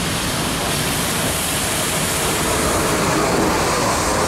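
Double-stack intermodal container cars rolling along the track, a steady noise of steel wheels on rail.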